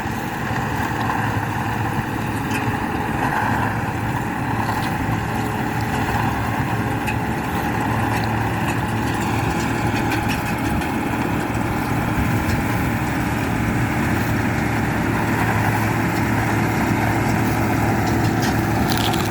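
Rice harvesting machine's engine running steadily, a continuous low hum under a dense mechanical whirr.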